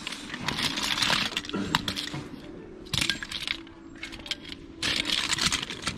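Small hard-plastic toys and loose parts clattering and clicking against each other as hands rummage through a pile. It comes in a few bursts with short lulls between.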